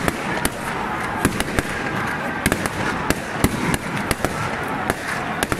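Firecrackers going off in an irregular string of sharp cracks, about two a second, over the steady din of a large crowd, as a saint's statue is carried out of the church.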